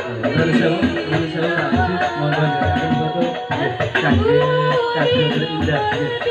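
A young woman singing an Arabic sholawat through a microphone, over hadrah banjari frame drums (rebana) beating a steady, driving rhythm.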